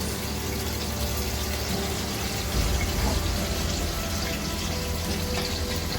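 Sliced onions frying in hot oil: a steady sizzling hiss.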